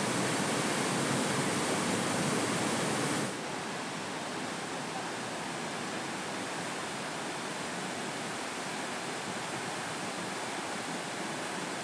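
Steady rushing of running water. About three seconds in it steps down abruptly to a slightly quieter, less hissy rush.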